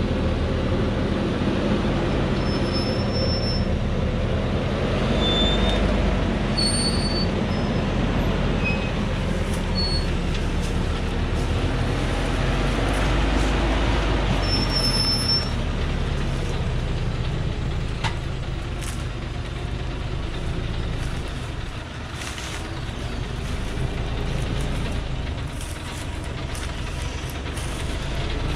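Diesel engine of a truck heavily loaded with acacia logs, running steadily under load as it climbs a steep dirt track, with a little tyre and body noise; it eases slightly about two-thirds of the way through.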